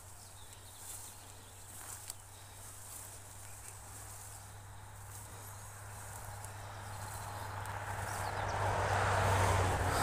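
Footsteps swishing through tall grass and leafy undergrowth, the rustle growing louder over the last few seconds, over a low steady hum.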